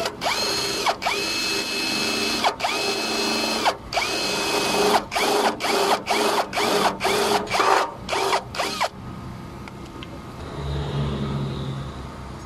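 Cordless drill drilling a hole into a vehicle's painted metal body, run in several long bursts that rise in pitch as the motor spins up, then a quick series of short trigger pulses, stopping about nine seconds in.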